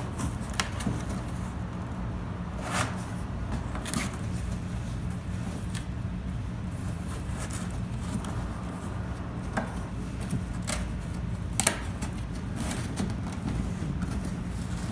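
Cardboard being handled: scattered light taps, scrapes and clicks as paper tabs are worked into the slots of a folded cardboard display, over a steady low hum.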